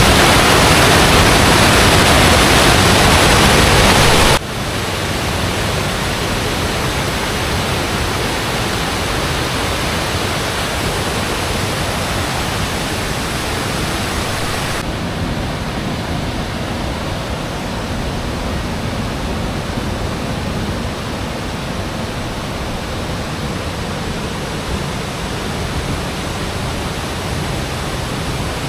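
Rushing water of the Aliwagwag Falls cascade, a steady, loud hiss of falling water. It becomes suddenly quieter about four seconds in and loses some of its hiss about fifteen seconds in.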